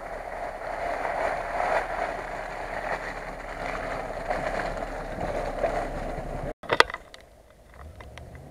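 Lada Niva 4x4 driving through mud toward and close by, its engine and tyres making a steady noisy rush. About two-thirds of the way through the sound cuts off, followed by a sharp loud click and a few fainter clicks.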